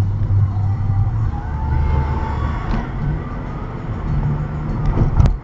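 Car driving at low speed, heard from inside the cabin: a steady low engine and road rumble, with a sharp click near the end.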